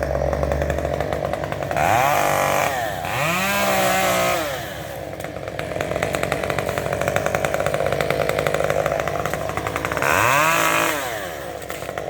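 Two-stroke chainsaw running, revved up and back down three times, with a steady rapid running sound between the revs.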